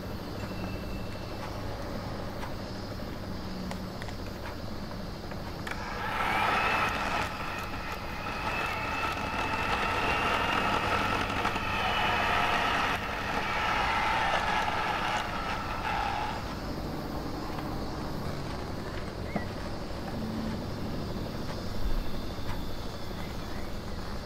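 Electric hand mixer beating cream cheese in a stainless steel bowl: a steady motor hum that rises to a louder, higher whine about six seconds in, holds for about ten seconds, then drops back.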